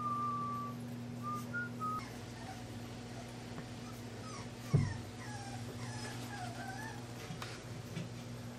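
English bulldog puppies whimpering with thin, high, gliding whines and squeaks, and a single thump about halfway through, over a steady low hum.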